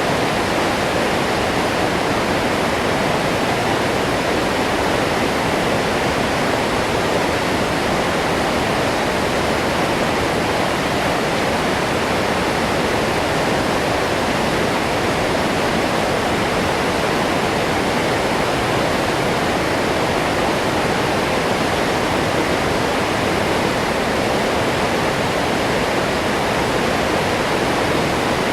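Waterfall: water falling and crashing in a loud, steady rush with no letup.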